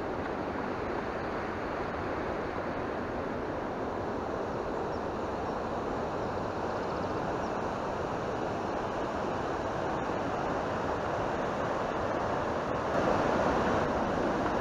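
Steady rushing of a mountain stream tumbling over rocks, growing louder about thirteen seconds in.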